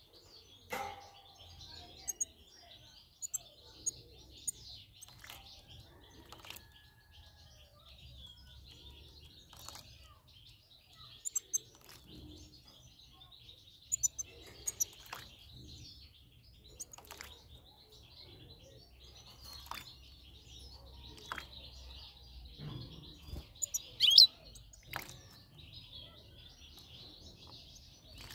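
European goldfinches chirping: short high tweets scattered throughout, the loudest call about 24 seconds in, over a steady high background hiss. Brief splashes and wing flutters come from a goldfinch bathing in a shallow tray of water.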